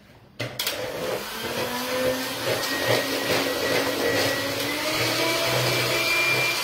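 Handheld electric mixer switched on about half a second in, then running steadily with a slightly wavering hum as its beaters whip egg yolks and honey into an emulsion.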